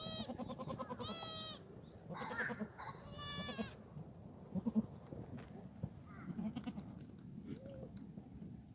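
Black goats bleating: four wavering bleats close together in the first four seconds, then fainter calls and a few small knocks.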